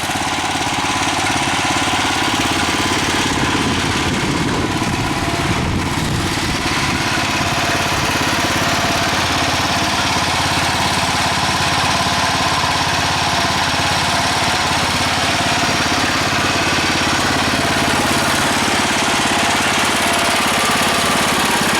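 Garden tractor's small engine running steadily.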